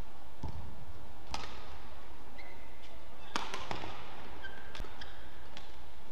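Badminton rally: sharp cracks of rackets striking the shuttlecock, a single hit about a second in and a quick cluster of hits a little past the middle, with short squeaks of court shoes in between over a steady hall hum.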